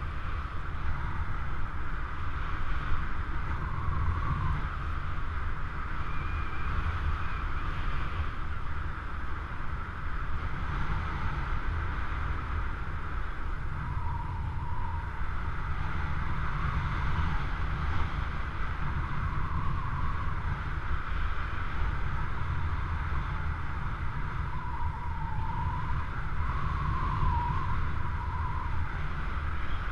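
Airflow buffeting the camera microphone of a paraglider in flight: a steady low rumble of wind noise with a hiss above it, and a faint wavering whistle now and then.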